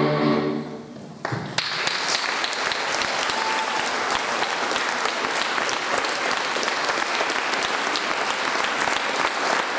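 Audience applause at the end of a sung number. The singing fades out in the first second, and after a brief lull the clapping starts about a second and a half in and keeps up steadily.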